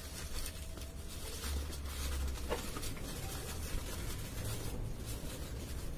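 Crepe paper rustling and crinkling as hands gather it into folds and press it in place, over a low steady hum.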